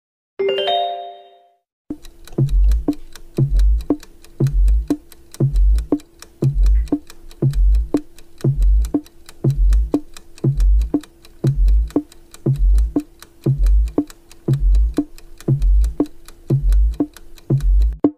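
Quiz countdown-timer sound effect: a short chime, then steady fast ticking over a low thump once a second and a held tone. It stops just before the end.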